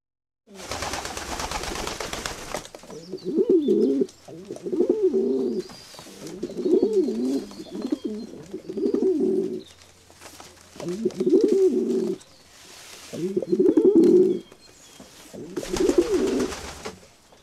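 Pigeons cooing: about seven low coo phrases, each about a second long, repeated with short gaps. A rush of hissing noise comes at the start and again near the end.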